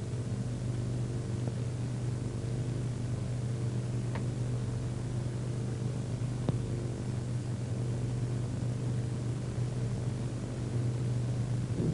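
Steady low electrical hum with background hiss, with two faint clicks about four and six and a half seconds in.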